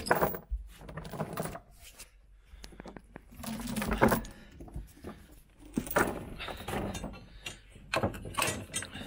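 Steel lashing chain and a crane hook being handled on a wooden trailer floor: irregular clinks, clanks and knocks of chain links, with cloth rustling.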